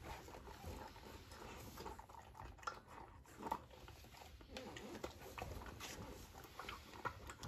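Deutsch Drahthaar (German wirehaired pointer) puppy eating from a stainless steel bowl: soft irregular chewing and small clicks of its muzzle and food against the metal, with a few louder clinks.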